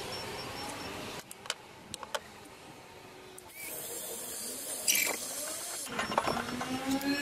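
Wood assembly work: a few knocks and clicks of wooden parts, then a cordless drill's motor whirring near the end with a slowly rising whine.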